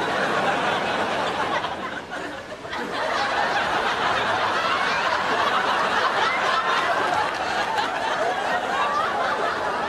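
Many voices chattering and laughing together in a dense babble, dipping briefly about two to three seconds in.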